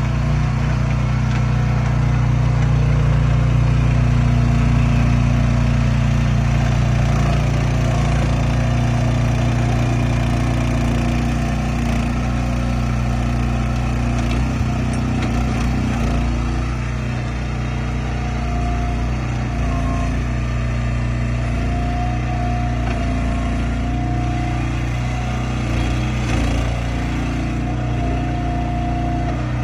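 Landward XT12 excavator's diesel engine running steadily under work, its note rising and falling a little as the machine is operated. A faint steady whine comes in about two-thirds of the way through.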